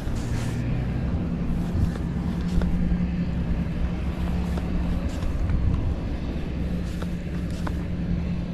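An engine running steadily with a low, even hum, over a rumbling background, with a few faint ticks.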